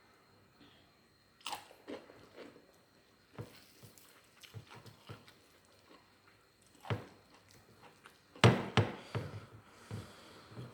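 A person chewing and biting food at close range, with short crisp crunches spaced irregularly; the loudest pair of bites comes about eight and a half seconds in.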